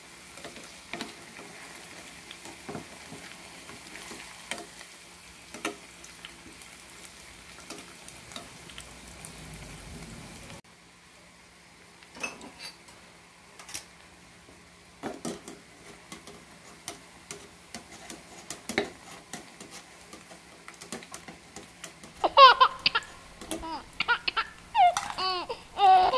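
Tofu deep-frying in oil in a small metal pot, sizzling steadily, with clicks and scrapes of a metal spatula and strainer against the pot; the sizzle drops quieter about ten seconds in. Near the end, loud high wavering calls break in over it.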